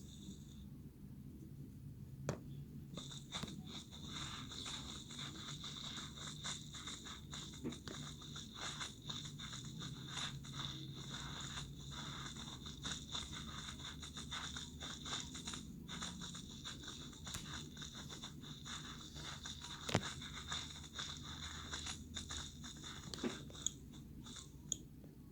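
Irregular crunching and scraping made up of many small clicks, over a faint steady high hiss.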